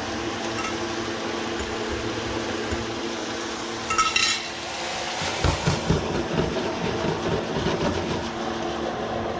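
Pigeon peas sizzling and simmering in a pan with a little liquid, over a steady hum, with a spoon clinking and scraping against the pan about four seconds in and a few dull knocks shortly after.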